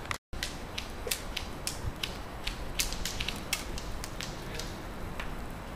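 Airsoft rifles firing single shots: a steady run of sharp, irregular clicks, about three a second.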